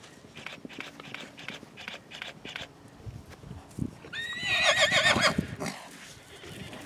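Chestnut yearling colt whinnying loudly about four seconds in, one quavering call lasting about a second and a half, with the thud of his hoofbeats as he gallops on grass.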